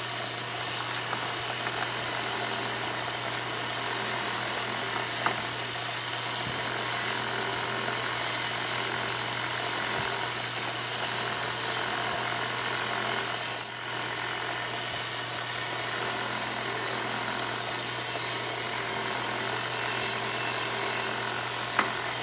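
Bench grinder running with a wire wheel: a steady motor hum under the even hiss of the wire brush scrubbing rust off a steel VW Beetle pedal-cluster part. The scrubbing swells louder for a moment about 13 seconds in.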